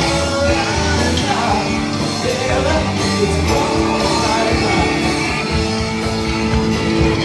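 Live rock band playing: electric guitars, keyboard and drums, with a lead vocalist singing.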